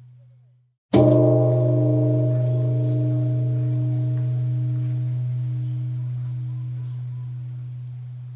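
Buddhist temple bell struck once about a second in, after the fading tail of the previous stroke. A deep steady hum and higher ringing overtones follow the strike and die away slowly.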